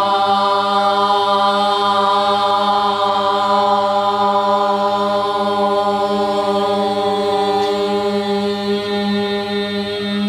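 Several voices holding one long, steady sung note together, a pansori vocal warm-up exercise in sustained tone. One voice drops out about eight seconds in while the others keep the note.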